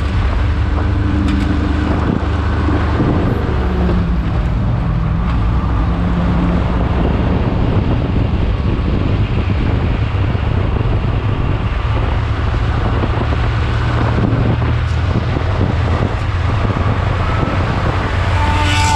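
Race car engine running steadily at speed on track, with wind noise on the microphone.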